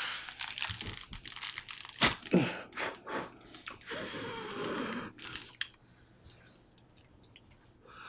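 A homemade glove of crinkly packaging material crackling and rustling as it is pulled off a hand, with a short strained vocal sound about two seconds in. The crinkling dies away after about five seconds.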